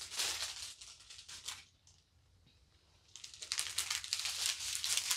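Strips of small plastic diamond-painting drill bags crinkling and rustling as they are handled. It stops for about a second and a half, then resumes about three seconds in.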